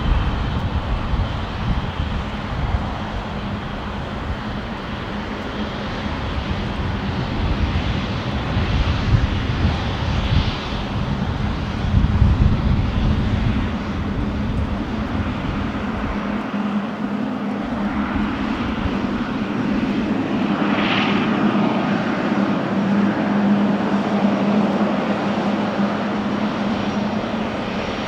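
Jet airliner engines running as an aircraft moves past, a steady rumble with a whine that rises and then falls about two-thirds of the way through.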